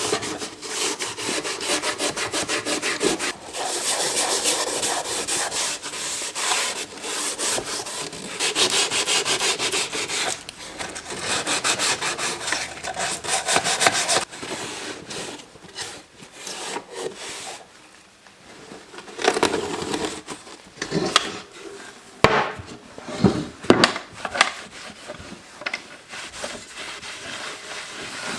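Rapid back-and-forth rubbing strokes on a wooden surface, dense and rhythmic, then sparser after about fourteen seconds with scattered knocks.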